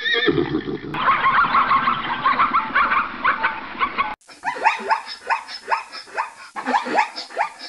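Animal calls from three clips cut together. The first is a pitched call; about a second in it changes to a dense chatter of many short high calls; about four seconds in it cuts to a run of quick, separate calls, several a second, that slide in pitch.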